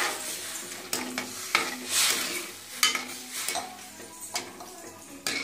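Steel ladle stirring semolina (rava) and water in a kadai, scraping and knocking against the pan in repeated strokes over a sizzling hiss from the water hitting the hot pan.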